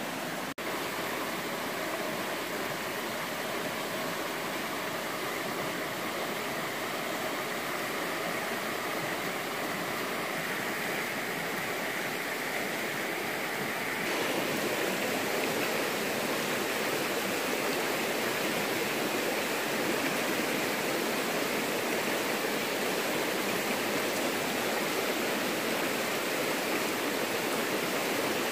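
Shallow rocky stream running steadily over boulders, an even rushing of water that grows fuller and a little louder about halfway through.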